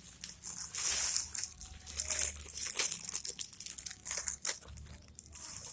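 Plastic packaging crinkling and crackling in irregular spurts as it is handled and unwrapped during an unboxing.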